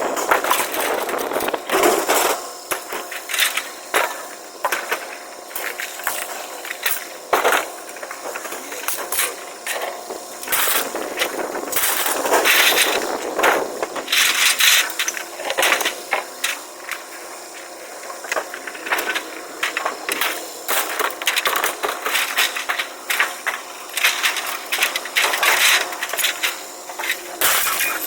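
Scrap metal clanging and clattering as pieces are thrown off a trailer onto a scrap pile: a long run of irregular knocks and bangs, some ringing briefly.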